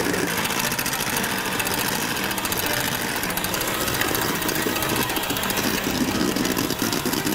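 Electric hand mixer running steadily, its beaters whisking egg whites in a stainless steel bowl while hot sugar syrup is poured in to make Italian meringue.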